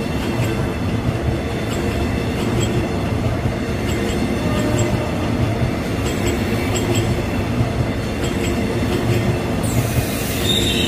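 CNR-built stainless-steel passenger coaches rolling past, wheels rumbling and clacking over the rail joints. Near the end a high-pitched squeal sets in as the train's brakes are applied on the approach to the station, a sound called ear-piercing.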